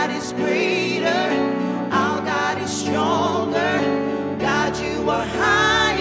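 Contemporary Christian worship music: a woman's lead vocal, with a wavering, vibrato-like pitch line, and two backing singers, over steady held instrumental chords.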